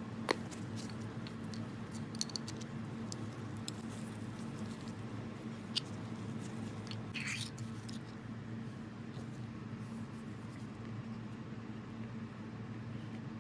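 Small clicks and taps of metal lathe parts and a screwdriver being handled, with one sharper click just after the start and a short scrape about seven seconds in, over a steady low hum.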